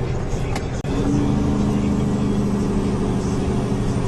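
Tanker truck's engine and road noise heard from inside the cab while driving, a steady low drone. About a second in there is a brief click, after which a steadier engine hum comes through.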